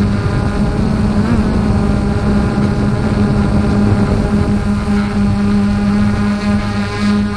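An engine running steadily at constant speed: a continuous, even drone.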